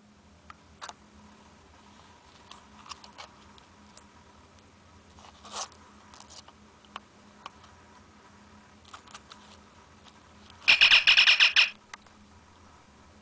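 Faint clicks and taps of a hand-held communicator prop, then near the end a loud, warbling electronic chirp of about a second from the Star Trek communicator replica's Playmates toy sound board, set off as the flip lid opens.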